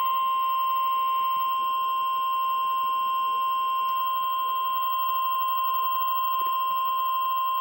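NOAA Weather Radio 1050 Hz warning alarm tone, a single steady tone played through a Midland WR400 weather radio's speaker, signalling that an emergency alert, here a severe thunderstorm warning, is about to be read.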